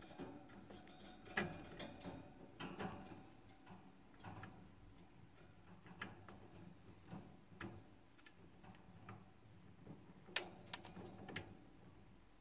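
Hamster nibbling seeds off a seed treat stick: faint, irregular small crunches and clicks.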